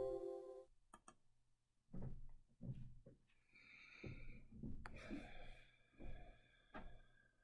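Near silence with faint, short breathy and handling noises. It opens on the dying ring of a plucked, guitar-like chime.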